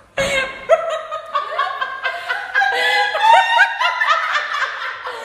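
Young woman laughing hysterically in loud, high-pitched squeals that go on without a break. The laughter breaks out with a sudden thump just after the start.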